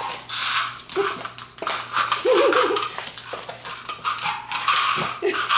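A small dog in a plastic cone scrambling on a tile floor, the cone and claws clattering and scraping. There are short high cries about a second in and again, longer, around two seconds in.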